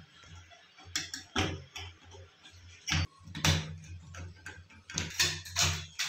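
Scattered sharp clicks and knocks of a cylindrical door knob lock's metal parts as its mounting screws are loosened with a flat-head screwdriver and the loosening lock body shifts. A steady low hum runs underneath.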